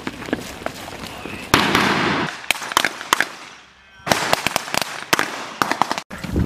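Military rifles firing blank cartridges in a mock firefight: scattered single shots and quick strings of shots, with one louder, longer blast about a second and a half in.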